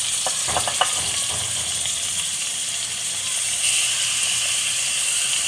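Chopped onions and crushed ginger sizzling in hot oil in an aluminium wok, a steady frying hiss.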